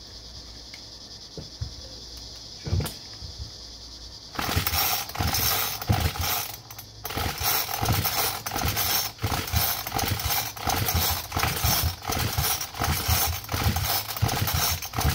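A four-stroke weed eater's recoil starter is pulled over and over, about two pulls a second, starting about four seconds in. Each pull whirs and rattles, and the engine turns over without catching on its newly fitted carburetor. Crickets chirp steadily before the pulls begin.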